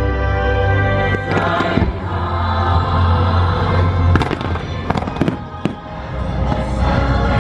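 Fireworks bursting in a string of sharp bangs over the fireworks show's loud orchestral soundtrack music.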